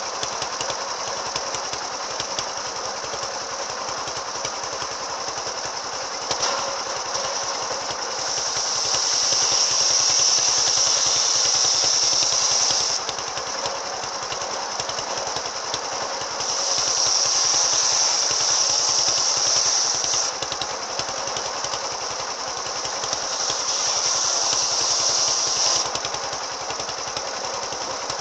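Brush cutter fitted with a circular saw blade, its engine running steadily and revving up to high speed three times for about four seconds each, dropping back between.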